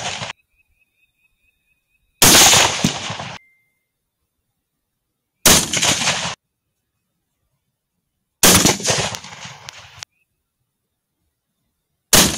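Four rifle shots at roughly three-second intervals. Each is a sharp crack whose echo rings for about a second and then cuts off abruptly.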